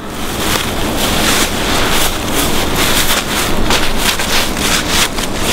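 Loud, steady rushing noise of wind buffeting the microphone, broken by many short crackles.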